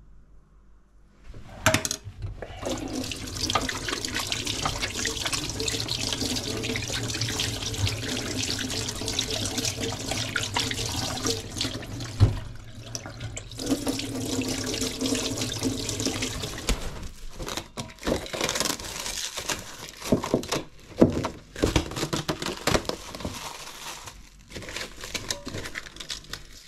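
Kitchen tap running into a stainless-steel sink while sticky bread dough is washed off the hands. The water stops about two-thirds of the way through, followed by irregular short rustles and knocks.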